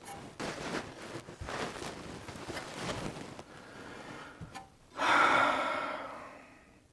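Rustling and scraping of parts being handled on a mini split heat pump's indoor unit, then a louder whoosh about five seconds in that fades away over two seconds.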